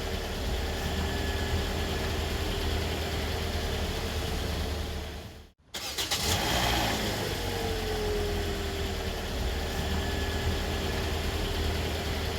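Car engine running with its revs easing down and settling to a steady idle. About five and a half seconds in the sound cuts out for a moment, the engine catches again with a short burst, and the revs fall back to idle once more.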